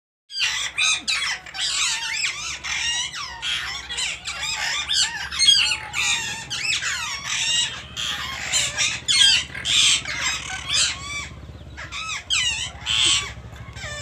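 Several rose-ringed parakeets calling over one another, a rapid, nearly unbroken run of high-pitched calls with a short lull near the end.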